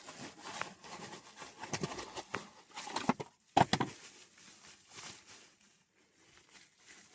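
A new blower motor resistor being taken out of its box and handled: scattered light clicks, taps and rustling of packaging, with one sharper knock about three and a half seconds in.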